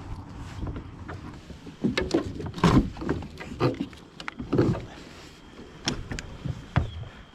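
Water splashing and irregular knocks as a big bass is landed and handled, with a cluster of sharp splashes about two to three seconds in and more near the middle.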